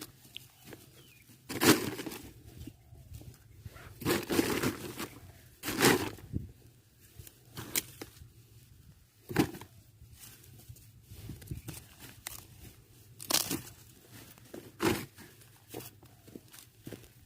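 Cassava plants being handled: leaves and stems rustling and tearing in about seven irregular bursts, some short and some lasting up to a second.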